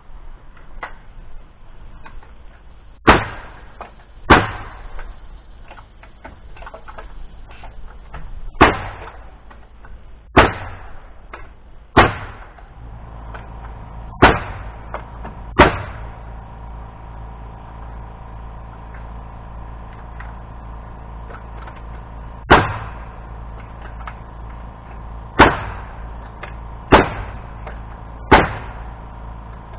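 Nails being driven into a wooden header: about eleven sharp, loud strikes, spaced irregularly a second or more apart. A steady machine hum sets in about halfway through.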